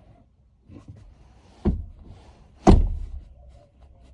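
Two heavy thunks about a second apart, the second louder: the rear seat of a Ford F-150 crew cab being brought down and knocking into place.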